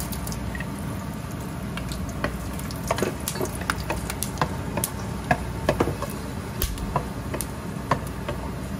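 Whole dry spices (dried red chillies, bay leaves, cinnamon, cardamom, cloves) sizzling in hot oil in a metal pot while a spatula stirs them, tempering the spices for a tadka. The spatula knocks and scrapes against the pot in frequent sharp clicks over a steady hiss.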